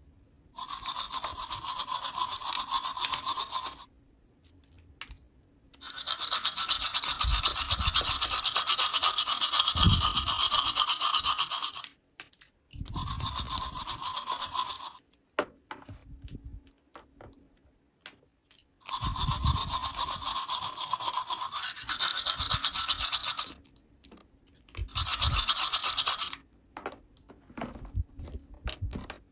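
A small battery-powered toy motor buzzing with a steady hiss, in five bursts of a few seconds each with short quiet gaps between them.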